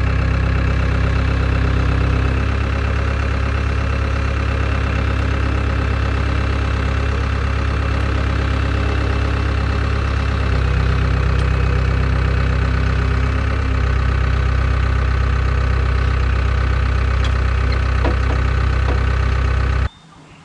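Caterpillar skid steer loader's diesel engine running steadily while the loader arms are raised, its note shifting a few times, then cutting off abruptly near the end.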